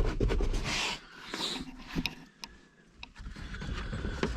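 Toyota FJ Cruiser's plastic center console scraping, knocking and clicking as it is forced out past the parking brake handle, with a hiss of breath about a second in. After that, only a few separate sharp clicks.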